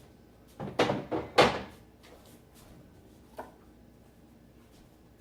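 A quick run of knocks and clunks about half a second to a second and a half in, the loudest near the end of the run, then one light knock a couple of seconds later, as things are handled and set down on a kitchen counter.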